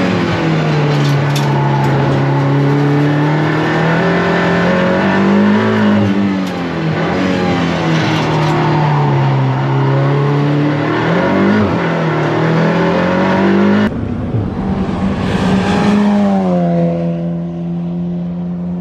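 Audi RS 3 LMS TCR race car's turbocharged 2.0 TFSI four-cylinder heard from inside the cockpit at speed, its note climbing and dropping repeatedly through gear changes. About fourteen seconds in it cuts to trackside, where a race car goes past with its engine note falling as it moves away.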